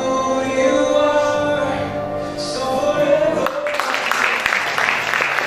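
Singing with music ending on a long held note, then applause breaks out about three and a half seconds in.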